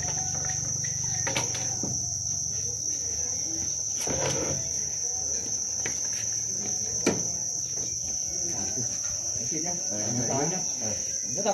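Many farmed black crickets chirping together in one continuous high-pitched trill, with a few faint knocks.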